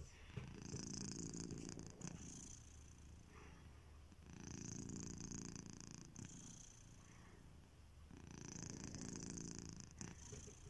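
Sleeping house cat snoring, in three slow swells about four seconds apart, one per breath.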